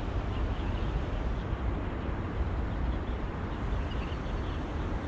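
Steady low outdoor rumble with faint, short high chirps scattered through it.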